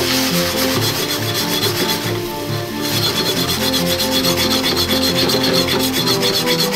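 Chopsticks scraping fast against the bottom of a non-stick frying pan as beaten egg is scrambled for an omelette: a rapid run of rubbing strokes that grows sharper about three seconds in.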